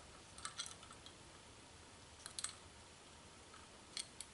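Faint small metallic clicks in three short clusters, about half a second, two and a half seconds and four seconds in, as the set screws are turned to lock a steel shaft collar on a keyed shaft.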